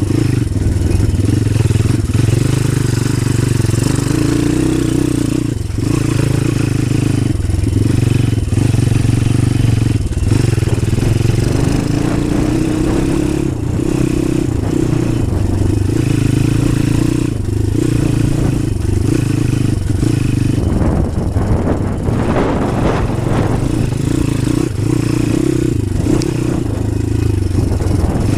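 DemonX Phatboi pit bike's small single-cylinder four-stroke engine running under way, the throttle rolled off and opened again every few seconds so the engine note dips and comes back. A rougher, noisier stretch about three-quarters through.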